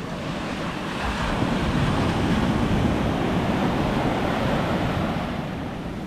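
Atlantic surf washing up the beach: the rush of a wave's foamy wash over the sand swells for a few seconds, then eases off near the end.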